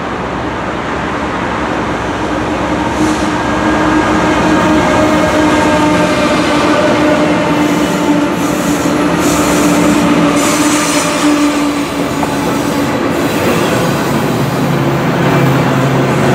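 A Norfolk Southern double-stack intermodal train passing, led by three GE Dash 9 diesel locomotives whose engines drone, growing louder over the first few seconds as they go by. This gives way to the steady rumble and clatter of the stack cars' wheels on the rails.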